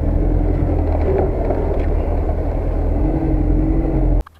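UAZ off-road vehicle's engine running steadily under load, heard from inside the cabin while crawling through snow in first gear, high range; the drone rises slightly about three seconds in. The sound cuts off abruptly near the end.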